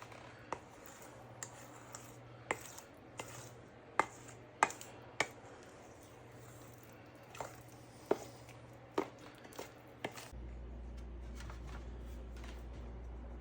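A kitchen utensil clicking and knocking against a dish while brownie batter is worked, about a dozen sharp irregular knocks over ten seconds. A steady low hum starts about ten seconds in.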